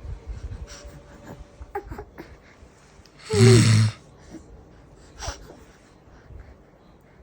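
A single loud snore, a rough, noisy snort with a deep low rumble, lasting about half a second a little over three seconds in. A fainter breathy sound follows about two seconds later.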